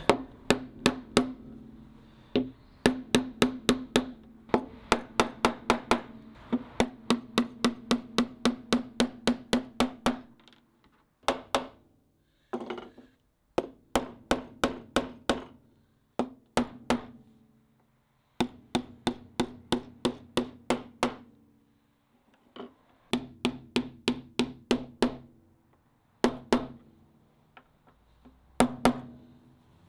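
Hammer driving copper-headed nails through the tabs of a steel grate into an oak door: quick runs of sharp strikes, several a second, with short pauses between the runs.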